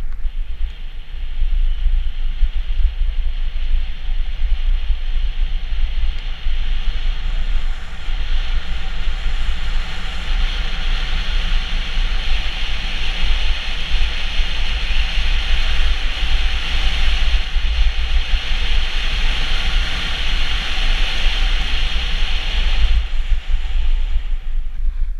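Wind buffeting the microphone of a helmet-mounted camera at riding speed, with a steady hiss of bike tyres rolling over a dirt trail. The hiss grows louder about eight seconds in and eases off about twenty-three seconds in.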